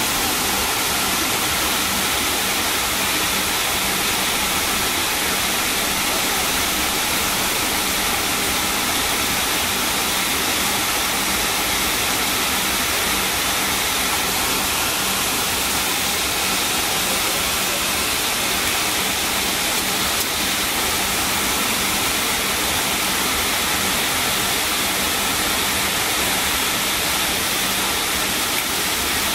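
Steady hiss and hum inside the cabin of a McDonnell Douglas MD-80 taxiing slowly, its engines at idle under the constant rush of the cabin air-conditioning.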